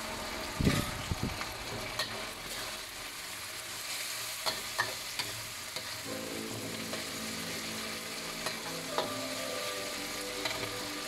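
Sliced onions sizzling and frying in sauce in a black wok on a gas burner, stir-fried with a metal spatula that scrapes and clicks against the wok several times, most sharply about a second in and again around four and a half seconds in.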